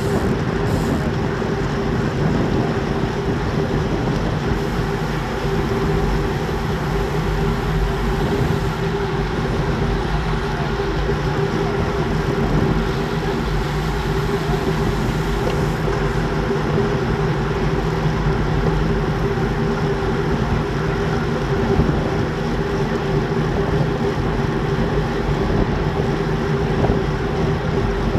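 Steady rush of wind over the camera's microphone mixed with the hum of road-bike tyres on asphalt, riding at about 43 km/h, unchanging throughout.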